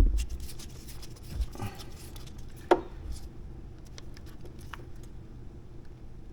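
Scattered light clicks and taps of small parts being handled while speaker wire connectors are pushed onto their terminals, with a louder knock at the start and a sharp click just under three seconds in.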